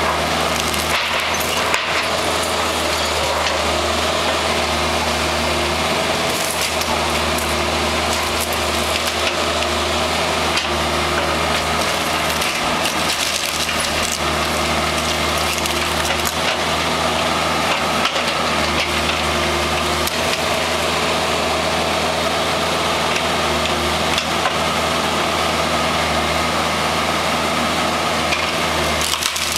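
Mini excavator's diesel engine running steadily under load, with wood cracking and splintering and debris clattering now and then as its bucket tears apart a timber-framed extension.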